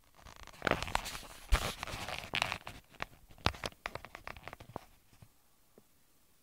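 Camera handling noise: a rapid run of rustles, crackles and sharp clicks as the camera is moved and set down, stopping about five seconds in.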